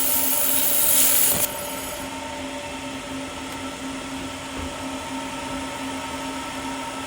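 A 1500 W air-cooled laser welding machine: a loud, steady hiss from the weld stops suddenly about a second and a half in, leaving the machine's steady humming drone.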